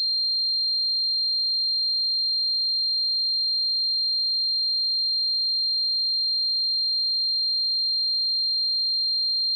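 Tinnitus simulation: a single high-pitched pure tone ringing steadily, unchanging in pitch and level, with a faint overtone an octave above.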